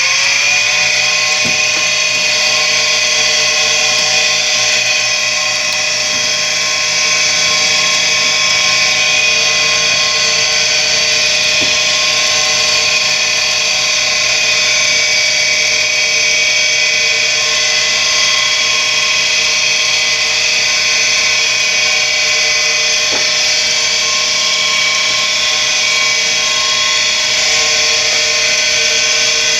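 Tempstar furnace draft inducer motor running at steady speed with a high mechanical whine. Its worn bearings have just been sprayed with lubricant, and the bearing noise shows that they are bad and the motor needs replacing.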